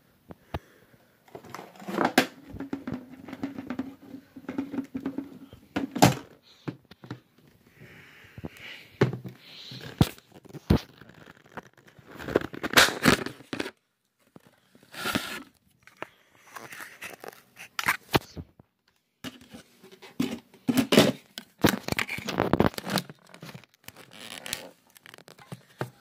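Irregular knocks, thuds and rustling of things being handled, some sharp clicks among them, with short pauses; no motor is running.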